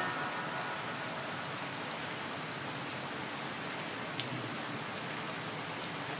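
Steady rain falling, an even hiss of drops, with one sharper tick about four seconds in.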